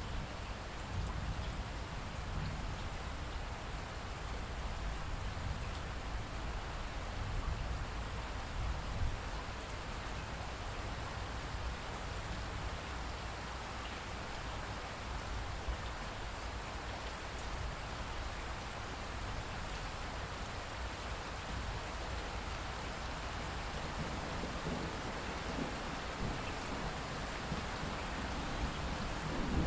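Steady rain falling, with low rolling thunder rumbling in the first third and again near the end.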